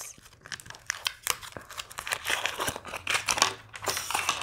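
Foil wrapper of a chocolate egg crinkling as it is peeled off and handled: a run of irregular crackles and rustles.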